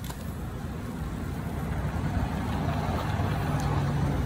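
A motor vehicle's engine running close by, getting steadily louder, with a steady low hum coming in about two and a half seconds in.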